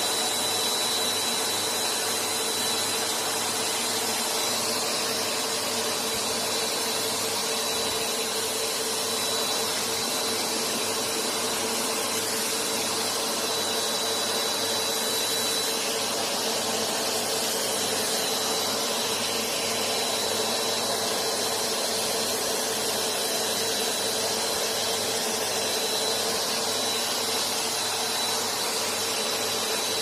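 Three Bissell vacuum cleaners (a PowerLifter and two PowerForces) running together through hoses taped side by side, sucking up shredded paper and plastic debris: a steady drone with a thin high whine over it.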